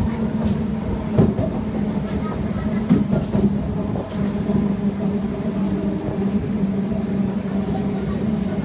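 Suburban electric local train running along the track, heard from inside the carriage: a steady rumble with a constant low hum and a few sharp clicks in the first few seconds.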